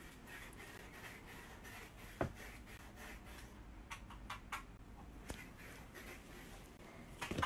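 Faint rustling and handling of cloth dust bags and clothes, with a few soft clicks, one sharper at about two seconds in and a small cluster about four seconds in.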